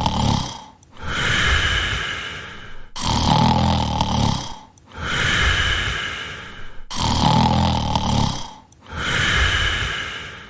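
Cartoon snoring sound effect repeating about every four seconds, each time as a low, rattling snore on the breath in followed by a higher, airy breath out.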